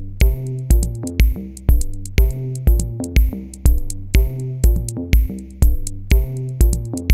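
Background electronic music with a steady drum-machine beat and synthesizer notes.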